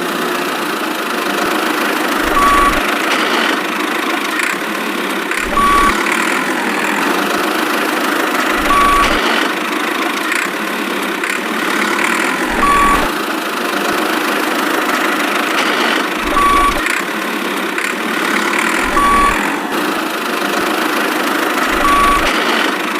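A steady engine-like running noise, with a short beep about every three to four seconds, each beep joined by a low thump.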